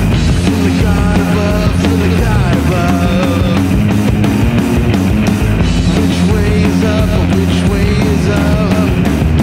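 Rock band playing loud: electric guitar, four-string Rickenbacker bass and drums, with a bending melody line riding on top.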